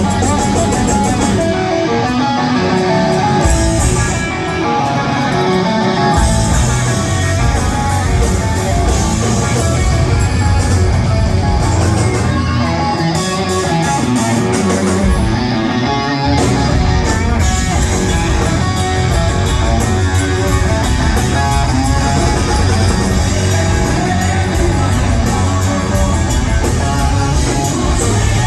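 Rock band playing live and loud, with electric guitar to the fore over bass guitar and drums. The bass drops out briefly twice, then comes back in.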